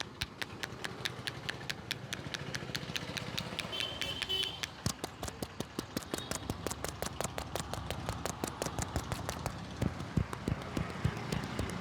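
Rapid hand tapping of a street massage: the masseur's hands strike the body in a fast, even rhythm, several strikes a second.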